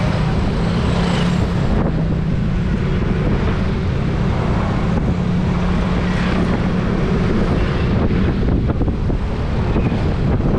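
Wind buffeting a camera microphone on a moving road vehicle, over the vehicle's steady low engine drone.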